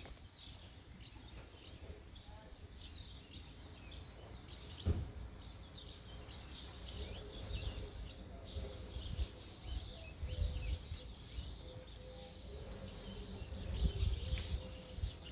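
Small birds chirping busily in quick, short notes, over a low rumble with a few soft thumps.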